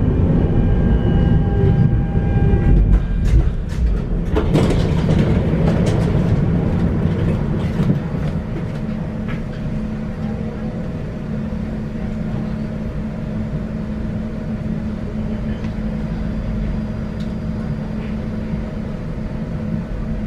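Tram running along its track with a steady low rumble. A high electric whine stops about two seconds in, and a run of clicks and knocks from the wheels on the rails follows a few seconds later.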